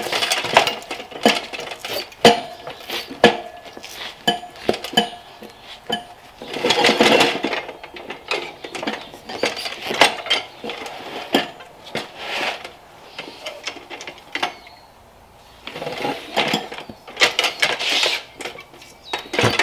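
Steel tire irons clinking, knocking and scraping against a dirt bike's rear wheel rim during a tire change, in irregular clanks with a few longer scraping stretches and a short lull near the end.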